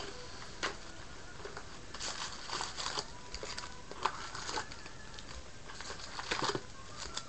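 Cardboard trading-card hobby box being opened and its plastic-wrapped card packs pulled out and set down on a desk: bursts of crinkling and rustling wrapper with a few light knocks.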